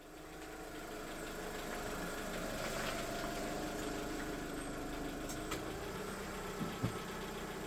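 Car engine idling steadily after a fresh oil change, fading in over the first second, with a couple of small clicks near the end.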